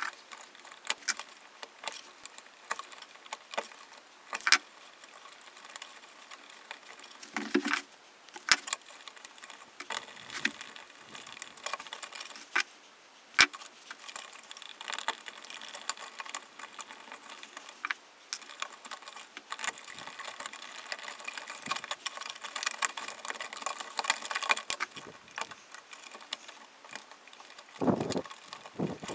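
Small metallic clicks, clinks and scrapes of hand tools working electrical cable at a plastic electrical box, with a couple of duller knocks.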